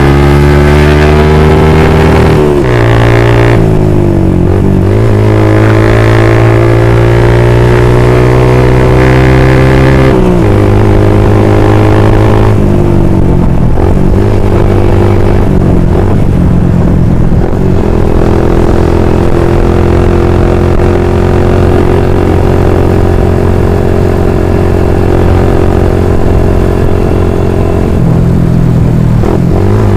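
Motorcycle engine running under way, loud and steady. Its pitch steps down and climbs again several times, as at gear changes and throttle changes: about two to four seconds in, around ten to twelve seconds, and again near the end.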